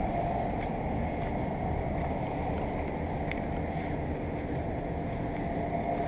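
A 2010 Daikin 1.5-ton inverter ductless mini-split heat pump outdoor unit running: a steady fan whoosh with faint steady humming tones from the unit.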